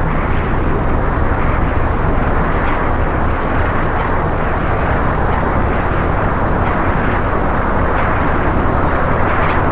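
Lo-fi ambient drone music from a cassette release: a dense, steady wash of hiss-like noise over sustained low tones, with no beat or melody.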